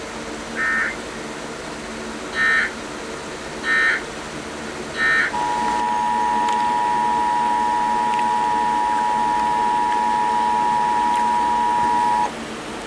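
Emergency Alert System signal: four short warbling bursts of SAME digital data, then the two-tone attention signal, a steady two-pitch tone held about seven seconds and cut off abruptly. It marks the start of a new alert, here a severe thunderstorm warning. A faint steady hum runs underneath.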